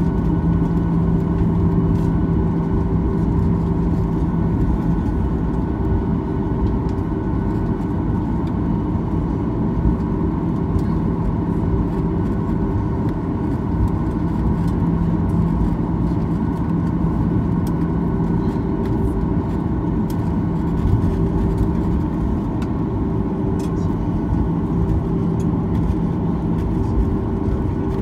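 Cabin noise inside a Boeing 737-900 taxiing, its CFM56-7B engines at idle: a steady rushing noise with a low hum.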